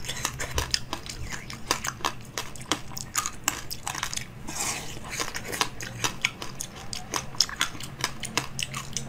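Ice with basil seeds frozen in it being bitten and chewed: a rapid, irregular run of sharp cracks and crunches as the frozen shell breaks in the mouth.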